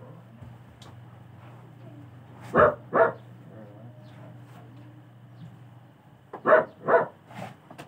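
Dog barking in quick pairs: two barks about two and a half seconds in, then two more near the end followed by a fainter third, over a low steady hum.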